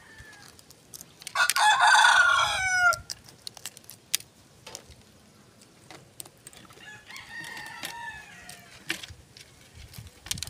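A rooster crows loudly about a second and a half in, a call of about a second and a half that bends in pitch at its end. A fainter second call comes about seven seconds in, over light clicks of eggshell being picked off.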